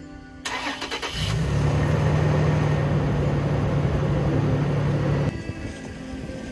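2014 Toyota Tacoma's V6 engine being started: a short burst of starter cranking, then the engine catches about a second in and settles into a steady idle. The sound cuts off suddenly near the end.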